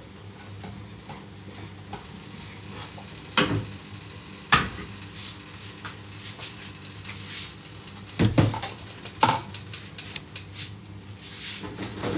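Dishes and cutlery clinking and knocking as they are handled at a kitchen counter: a handful of sharp knocks a second or more apart, over a steady low hum.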